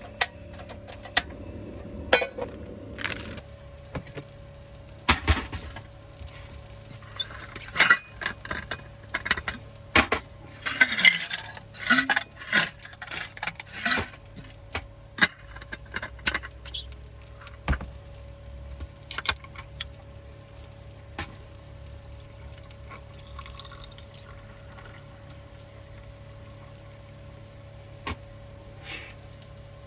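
Small objects being handled: a run of sharp clicks, knocks and clatter, busiest in the middle, with a brief splashy, liquid-like rustle among them, over a steady low hum. It thins out to a few stray clicks near the end.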